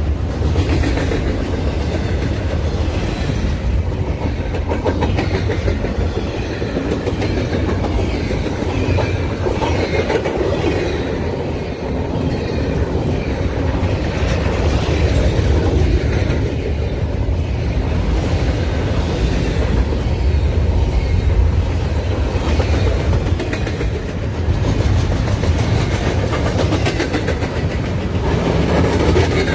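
Freight train of double-stack intermodal well cars rolling past close by: a steady, loud rumble of steel wheels on rail with a continuous clickety-clack from the wheels.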